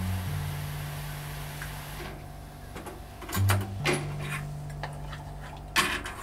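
Sauce boiling hard as it is reduced in a small saucepan, a fizzing hiss that drops away about two seconds in. A few sharp clicks and knocks follow. A simple background tune of steady low notes runs underneath.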